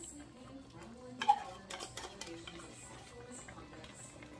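A metal fork clinking against a tin can and a wok while scraping out and stirring. One sharper clink with a short ring comes about a second in, and a few lighter clicks follow. Faint background music plays underneath.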